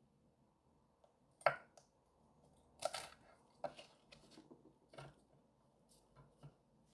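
Kitchen knife cutting through green chili peppers on a wooden cutting board: a handful of separate crisp cuts, each with the blade knocking the board, the loudest about one and a half seconds in.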